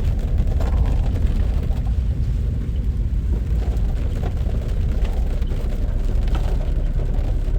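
Steady low rumble of heavy rain mixed with passing road traffic, with no distinct individual events.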